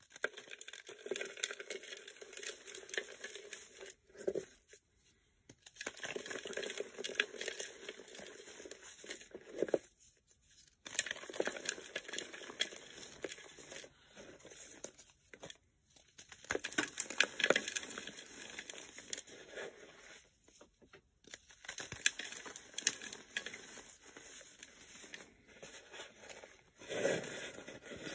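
Pressed bars of gym chalk and kinetic sand being snapped, crushed and crumbled by hand into loose powder: dry, gritty crunching and crackling. It comes in several bouts with brief pauses between them.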